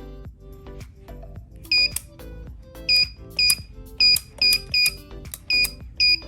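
Electronic keypad door lock beeping as its buttons are pressed: eight short, high beeps at irregular spacing, starting about two seconds in, over background music.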